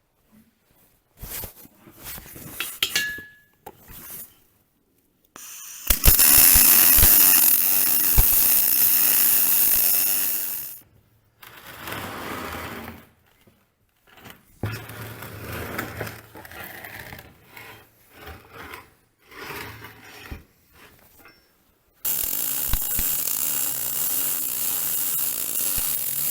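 Electric arc welding on a steel bale spike's box section: the arc's steady crackling hiss for about five seconds, stopping suddenly, then starting again for the last four seconds. Between the runs, clinks and knocks of metal.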